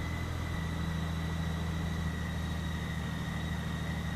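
Honda GL1800 Gold Wing's flat-six engine idling steadily, freshly started, with a thin steady high tone running alongside.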